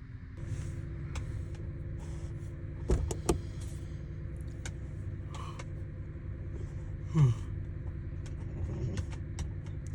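Steady low hum of a car heard from inside the cabin, with a few sharp clicks about three seconds in and a short sound falling in pitch about seven seconds in.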